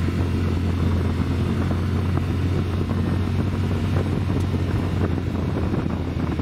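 Side-by-side UTV engine running steadily while driving along a gravel road, a constant low drone.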